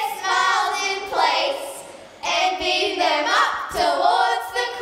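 A small group of girls singing together in wavering, sliding phrases without clear words: the deliberately awful singing of a comic 'choir that cannot sing' sketch. The pitch slides upward about three and a half seconds in.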